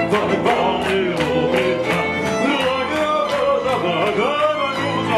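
Violin and piano duo playing a fast, lively piece: a bowed violin melody with sliding, bending notes over quick, steady piano chords.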